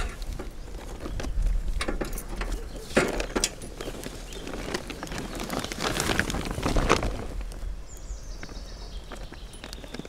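Rustling and knocking of a cloth bag being handled and lowered by hand, over a steady low rumble. A thin falling whistle comes near the end.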